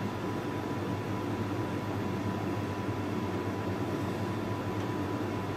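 Steady mechanical hum and hiss with a faint constant high whine, unchanging throughout.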